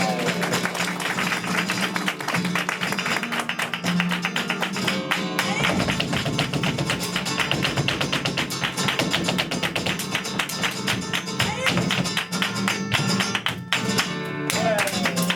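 Live flamenco bulería: strummed and plucked flamenco guitar with a steady stream of sharp percussive taps from the dancers' footwork.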